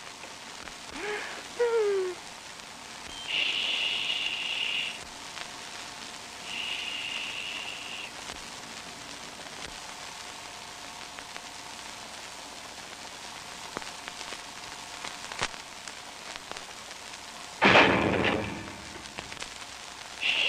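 Steady hiss of an old optical film soundtrack, with sparse cartoon sound effects over it. Short falling squeaky glides come about a second in, and high hissing sounds follow twice in the first eight seconds. A loud falling burst comes near the end.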